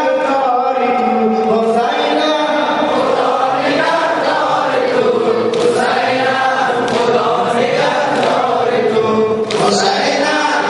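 Mourners singing a Persian noha lament together, many voices in unison on a slow, wavering melody.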